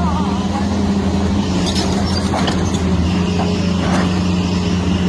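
Heavy machine's engine running at a steady pitch, with scattered light clicks and knocks over it.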